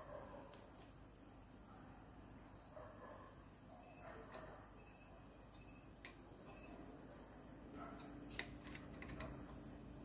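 Faint steady chirring of crickets, with a few faint clicks from hands working the lathe's toolpost and fittings; the sharpest click comes about eight seconds in.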